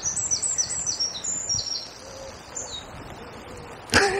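A songbird singing a run of quick, descending high notes over a steady hiss of flowing river water. A sharp knock about four seconds in.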